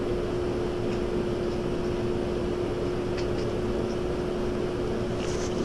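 Steady background hum: one constant tone over even hiss, with a few faint clicks.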